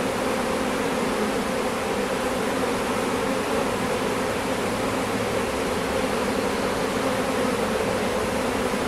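Steady buzzing hum of a honeybee swarm massed at a hive entrance as the bees walk in.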